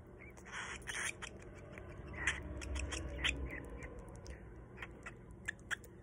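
Baby cockatiel chick's raspy, hissing begging calls, broken up by many quick clicks, as it takes hand-feeding formula from a syringe.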